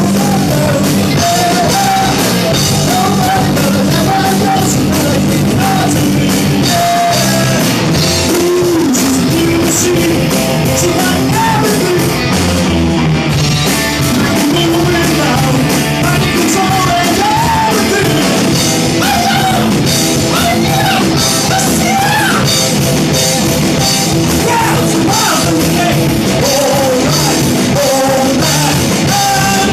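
Loud hard rock song with singing over a full band and drum kit, the sound heavily compressed and crowded.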